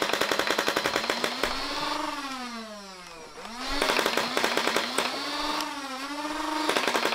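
Nerf Rival Perses, a motorized flywheel blaster, firing fully automatic bursts of foam balls: a rapid clatter of shots over the whine of its flywheel motors. The firing stops about two seconds in and the whine falls away, then the flywheels spin back up for a second burst, and a third burst starts near the end.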